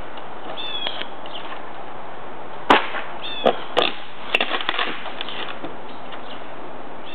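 Roof tear-off: old asphalt shingles and boards being pried and ripped up with a long-handled tool, giving irregular sharp cracks and knocks, the loudest about two and a half seconds in, over a steady hiss.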